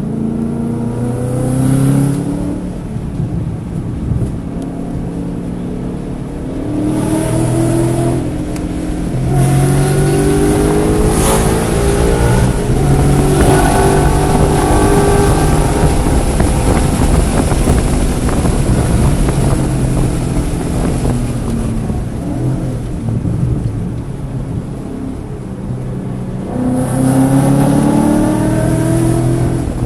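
Car engine at track speed, climbing in pitch under hard acceleration several times and easing off between, with tyre and wind noise underneath. The engine was misfiring on cylinders 1, 3 and 4 in this session.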